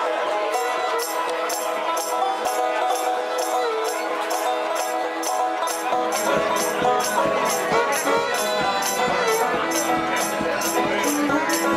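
A live blues band playing an instrumental intro: banjo picked with fingerpicks, with shaken percussion keeping a steady beat that starts under a second in. A fuller low end joins about halfway through.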